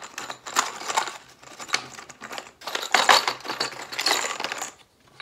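Fingers rummaging through a plastic tub of screws and small parts, the pieces clattering and clicking against each other and the tub in several bunches.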